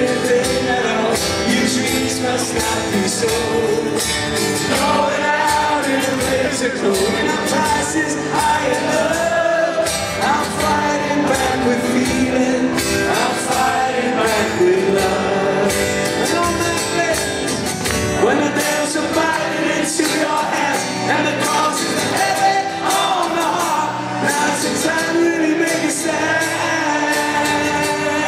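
Live rock song played on strummed acoustic guitar with singing over it, loud and steady; the deepest bass drops away about two-thirds of the way through.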